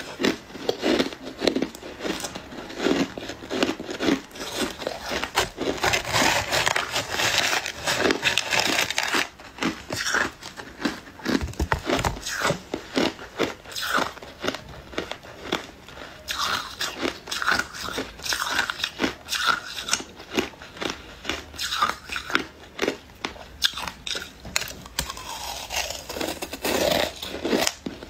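Shaved and refrozen ice being chewed: a dense, continuous run of sharp crunches and crackles as the ice breaks between the teeth.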